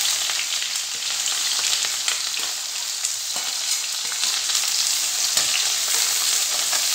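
Freshly added chopped onions sizzling in hot oil in a kadhai: a steady, loud sizzle with faint crackles of spattering oil.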